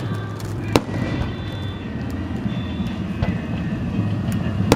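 Fireworks display: an aerial shell bursts with one sharp bang just under a second in and a fainter one about three seconds in, over a steady low rumble and small crackles from other shells.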